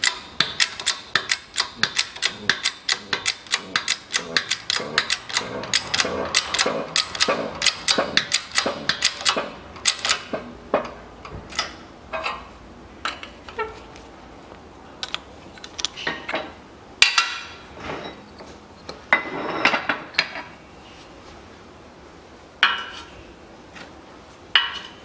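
Hand-pumped hydraulic shop press working, a quick series of metallic clicks and knocks, about two to three a second, as a needle roller bearing is pressed into a Land Rover Defender front hub with a mandrel. It thins out after about ten seconds into scattered clanks and a few short scrapes of steel tooling.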